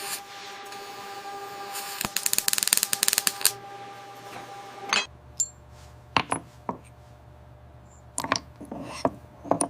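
Small metallic clicks and clinks of tools working on an oven's metal parts. A rapid run of clicks comes about two seconds in over a steady hum. After a sudden change in the background, a few scattered clinks and knocks follow.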